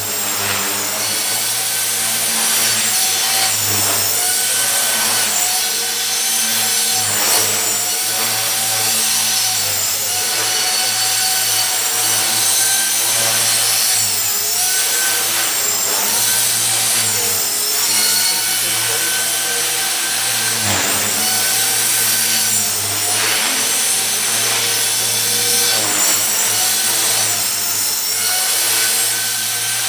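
T-Rex 450 electric RC helicopter with a Scorpion brushless motor in 3D flight: a steady high-pitched motor-and-gear whine with rotor buzz, wavering up and down in pitch as the load changes.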